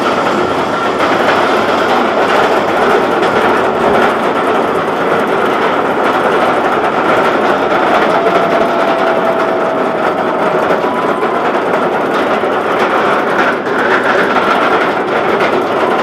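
Steel roller coaster train of a B&M wing coaster running on its track: a steady loud rumble of wheels on rail, with faint thin squealing tones above it.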